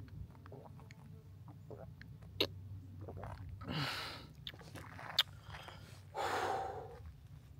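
A person breathing hard, with two loud breaths about two seconds apart, over scattered small clicks and a low steady rumble.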